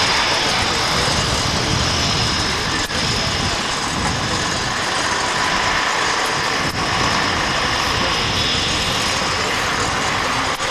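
Steady jet engine noise on an airfield flight line, a continuous rush with a thin high turbine whine above it.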